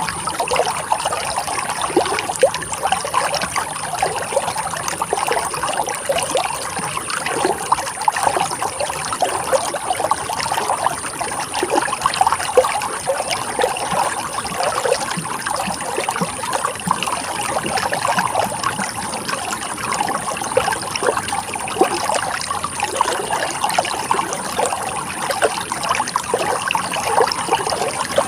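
Running water trickling and splashing steadily, with lots of small bubbling splashes over a constant high hiss.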